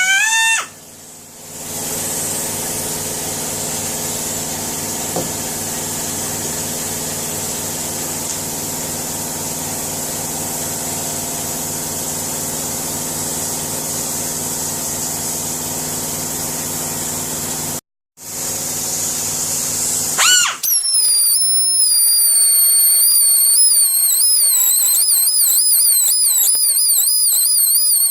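Electric power tool running steadily, cutting off for a moment about 18 seconds in. A warbling high-pitched tone takes over near the end.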